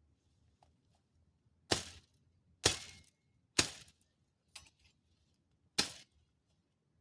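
Five sharp strikes about a second apart, each with a short ringing decay; the fourth is weaker than the others.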